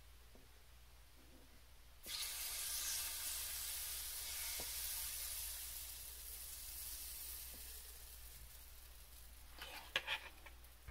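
Chaffle batter of eggs and cream cheese sizzling as it is poured onto the hot plate of a mini waffle maker: a loud hiss starts suddenly about two seconds in and slowly fades. A few light knocks come near the end.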